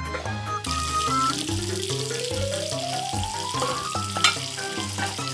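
Water running from a tap as the toy hand mixer is rinsed at the sink, with a tone rising steadily beneath it and a sharp click about four seconds in.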